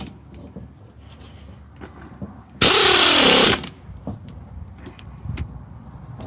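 Impact wrench spinning a wheel lug bolt down in one loud burst of about a second near the middle, its motor pitch dipping and coming back up as the bolt runs in. Faint clicks of handling in the pauses.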